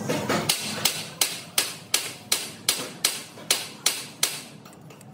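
Hammer blows in a steady rhythm, about three a second, a dozen in all, stopping near the end.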